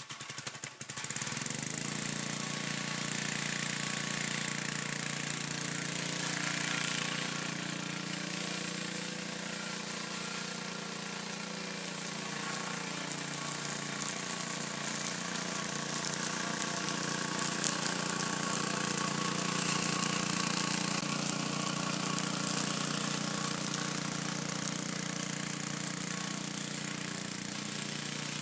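Walk-behind rotary lawn mower engine running steadily while cutting grass.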